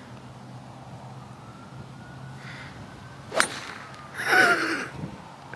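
A three wood strikes a golf ball off the tee, a single sharp crack about three and a half seconds in. A player's drawn-out vocal reaction follows, falling in pitch.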